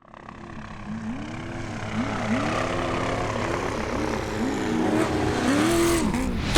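Race vehicle engines revving up and down again and again, their pitch rising and falling in quick overlapping sweeps, fading in at the start.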